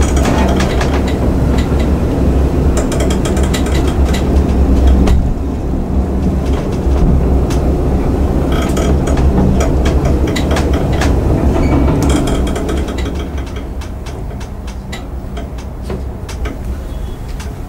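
LUTZ traction elevator car travelling through its shaft, heard from inside the car: a steady low rumble with rapid clicking and rattling from the moving car, growing quieter in the last few seconds.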